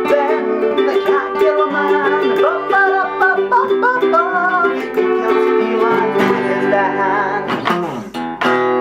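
Ukulele and acoustic guitar strumming chords together in an upbeat rhythm, ending with one last strummed chord left ringing near the end.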